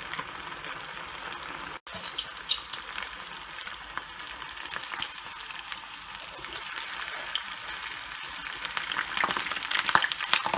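Marinated chicken breast pieces deep-frying in hot oil over a medium flame: a steady sizzle full of small crackling pops, growing busier near the end.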